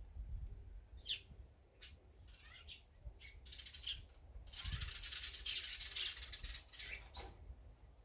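Small songbirds chirping in short, separate calls, then a louder, denser burst of high sound from about five to seven seconds in.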